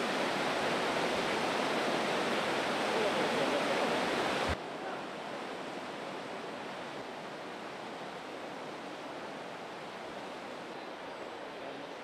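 Rushing white water of a mountain stream tumbling over rocks in a canyon, a steady noisy rush. It drops abruptly to a quieter rush about four and a half seconds in.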